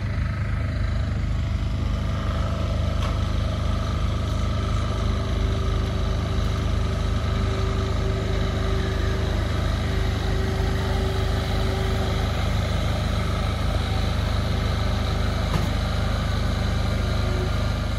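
CP UTE electric multiple unit moving slowly past at close range: a steady low rumble and electrical hum from its running gear and traction equipment, with a steady whine from about five seconds in that fades near the twelve-second mark.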